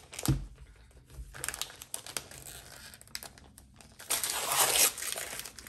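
Paper gift wrapping being crinkled and torn off a book by hand: a thump just after the start, scattered small rustles, then a loud burst of crinkling and tearing about four seconds in.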